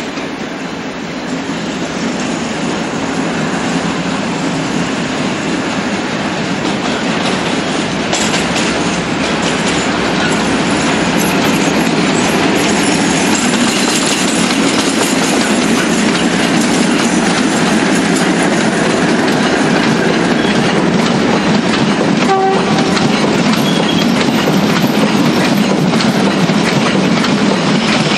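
EWS Class 56 diesel-electric locomotive, with its Ruston-Paxman V16 engine, hauling a train of engineering wagons past at low speed. The engine sound grows louder over the first dozen seconds as it draws near, then holds steady as the wagons rumble and clatter over the rails.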